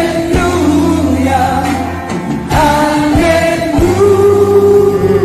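A live gospel concert recording: a singer and band performing, with long held sung notes over the band and a few sharp drum-like hits.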